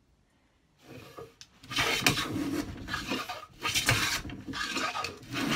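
Cast-iron Record No. 5 jack plane pushed along a wooden board, its blade shaving the wood in several quick strokes that begin about a second and a half in, after a quiet start. The blade is set to cut a thick shaving.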